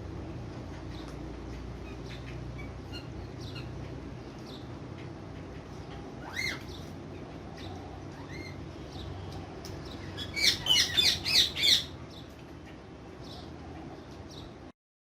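Ringneck parrot calling: faint scattered chirps, one call about six seconds in, then a quick run of about six loud, shrill squawks about ten seconds in.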